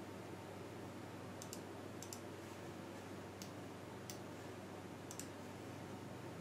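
Faint computer mouse clicks, about six spread out, several of them quick pairs, over a low steady hum.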